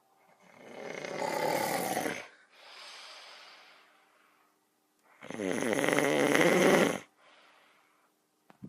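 A sleeping person snoring loudly: two long snores on the breath in, about five seconds apart, each followed by a softer breath out.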